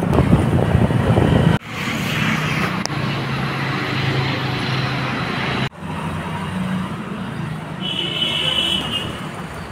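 Motor vehicle engine running steadily under road and traffic noise while riding along a street, the sound breaking off abruptly twice. A short high-pitched tone sounds about eight seconds in.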